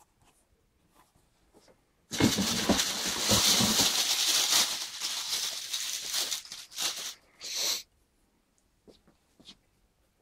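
Packing paper rustling and crinkling as it is handled around a new trainer. It starts suddenly about two seconds in, stays loud for about six seconds and ends in a few short crinkles, with faint handling ticks before and after.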